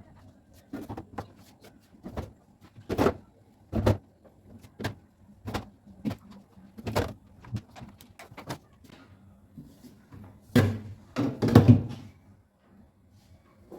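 A string of separate knocks and thuds, roughly one a second, with a louder cluster of bangs about eleven seconds in, like doors or cupboards being opened and shut and things set down.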